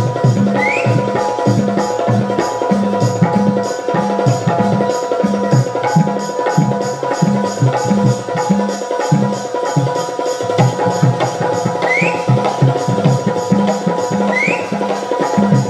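Live Bundeli Rai dance music without singing: a steady, driving drum rhythm with regular metallic ticks over a held keyboard note.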